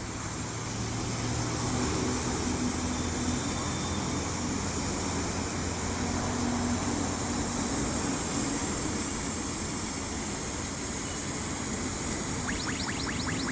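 Steady mechanical hum and noise from running machinery, with a fast, regular ticking starting about a second before the end.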